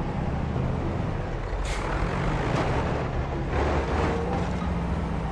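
A truck engine running steadily with a low rumble, with a few louder noisy swells along the way.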